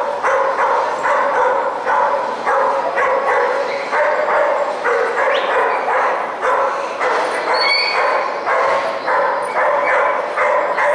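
A dog barking over and over in a steady rhythm, about two to three barks a second.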